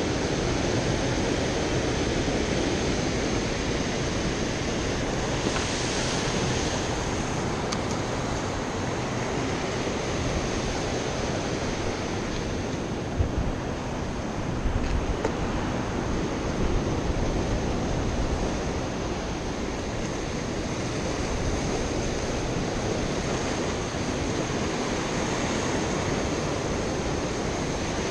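Rough ocean surf breaking and washing against a rocky shoreline, a steady rush of noise.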